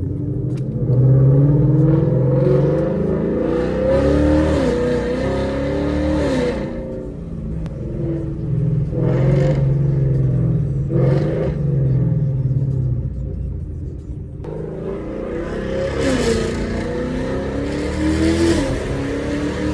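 Ford Mustang GT's 5.0 Coyote V8 with Kooks long-tube headers accelerating hard, three times, with a loud raspy exhaust note. The pitch climbs and dips during each pull, and the engine eases off between pulls.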